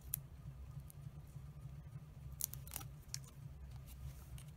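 Fingernails picking and peeling the paper backings off foam adhesive dimensionals on a cardstock piece: a few short, crisp clicks and paper rustles, two of them close together about two and a half seconds in, over a steady low hum.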